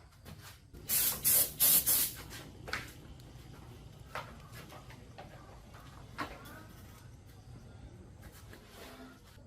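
Four short, loud hissing spray bursts about a second in, with a fainter one shortly after, then scattered light clicks and knocks.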